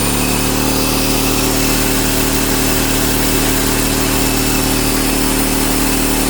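Fortress 27-gallon 200 psi air compressor running steadily at full speed, a loud even drone from its brushed electric motor and pump. It runs only once its sticking motor brush has been tapped down into contact with the commutator.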